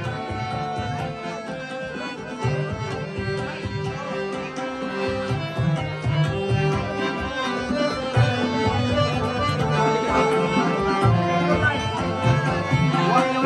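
Harmonium playing a melody of held reed notes, with tabla drums keeping a quick rhythm underneath; the instrumental music grows a little louder toward the end.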